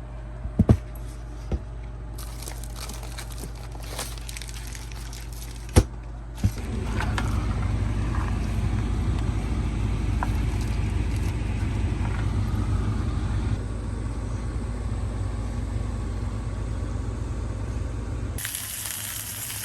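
Steady low rumble like a moving vehicle, with a few sharp clicks and knocks in the first six seconds; the rumble grows louder about six seconds in. Near the end it gives way abruptly to a steady hiss.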